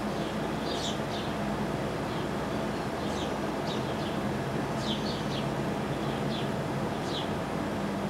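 House sparrows chirping, about ten short, high chirps scattered singly and in small clusters, as a fledgling begs to be fed. A steady low mechanical hum runs underneath.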